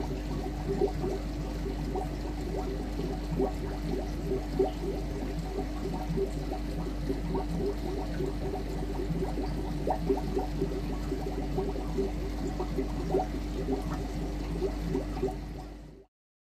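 Aquarium water bubbling and trickling, a dense run of small pops over a steady low hum, fading out near the end.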